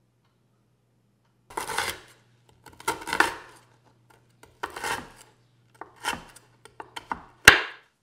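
A kitchen knife chopping down through stacked double-stuffed Oreo cookies on a wooden chopping board: about five separate crunchy chops, each a brief crackling crunch. The last is the loudest and starts with a sharp knock.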